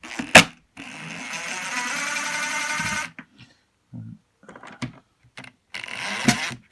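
Power drill running for about two seconds as it backs a screw out of a wooden speaker cabinet, after a sharp click at the start. Small clicks and knocks follow, then a second shorter run of the drill near the end.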